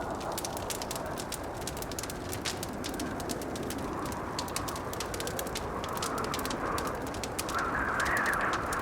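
Wood fire crackling in a fireplace with frequent sharp pops, over the steady rush of blizzard wind, which swells in gusts in the second half and is loudest near the end.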